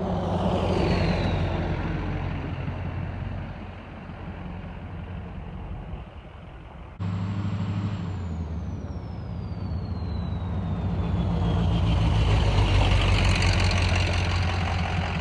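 Ford 6.0 Powerstroke V8 turbodiesel running, with a high turbo whistle falling slowly in pitch. The sound breaks off abruptly about seven seconds in and starts again with another falling whistle, and the engine grows louder toward the end.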